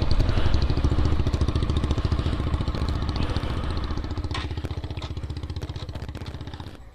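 Bajaj Pulsar NS200's single-cylinder engine running with a rapid pulsing beat, fading steadily.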